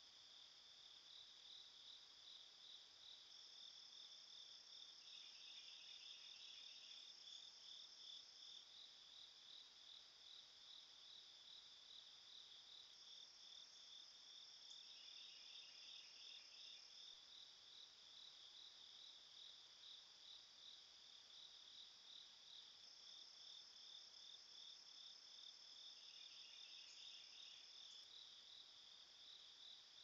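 Faint chorus of crickets and other night insects: a steady pulsing trill, joined three times by a higher, continuous buzz that lasts several seconds each time.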